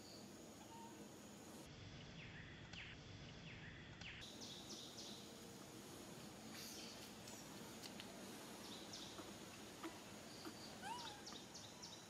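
Faint outdoor ambience: a low steady hiss with scattered short, high chirps and, near the end, one brief call that rises and falls in pitch.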